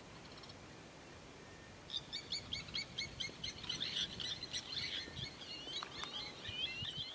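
A songbird singing: after a quiet start, a run of quick high notes about four a second begins about two seconds in and turns into a warbling phrase near the end.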